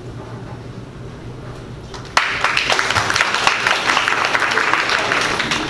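Audience applauding, starting suddenly about two seconds in and dying away near the end; before it, a quiet room with a low steady hum.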